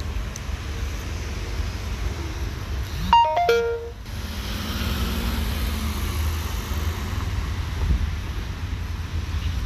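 Jet airliner passing overhead with a steady rumble and hiss. About three seconds in, a short electronic chime of a few falling notes, like a door chime, sounds above it.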